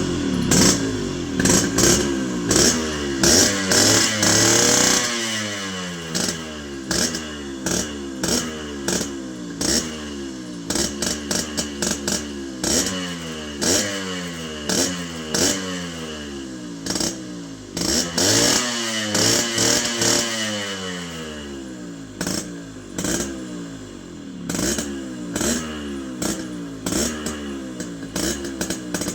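Yamaha RX100's air-cooled two-stroke single-cylinder engine running just after a cold start, blipped with short throttle revs about once a second between idle. It revs longer and higher a few seconds in and again around two-thirds through.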